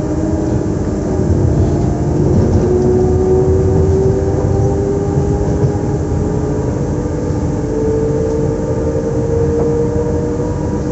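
Z 2N double-deck electric multiple unit Z 20895 standing with its onboard electrical equipment running: a steady hum with whines that slowly rise in pitch, over a low rumble.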